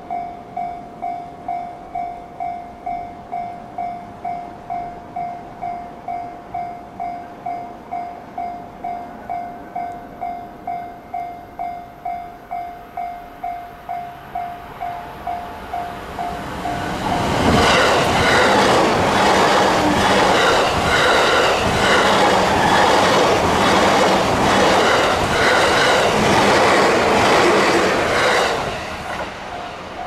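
Japanese level-crossing warning bell ringing in a steady repeated ding, about two a second. About seventeen seconds in, an E353-series limited express train passes through the crossing for some twelve seconds, its wheels clacking rapidly over the rail joints and drowning out the bell. The bell is heard again as the train clears.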